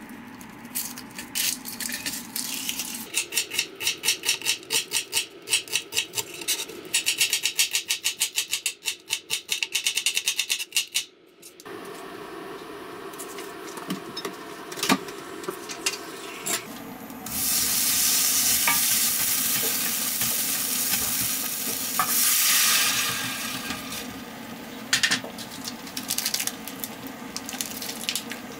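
Kitchen knife cutting an onion on a cutting board, a quick, even run of strokes that speeds up near the end. Then a quieter stretch, and from about two-thirds of the way in, sliced onions sizzling in a stainless steel pan with melted butter, a steady loud hiss.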